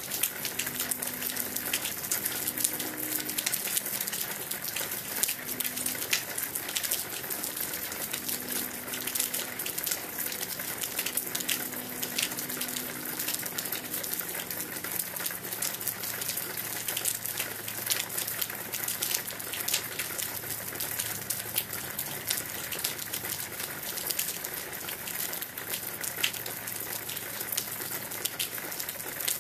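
Steady rainfall with many individual drops ticking and splashing on hard surfaces.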